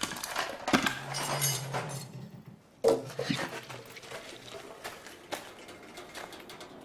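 Small metal objects clattering and clinking as they are rummaged through, in irregular rattles over a brief low hum. A sudden louder clatter comes about three seconds in, then the clinks thin out.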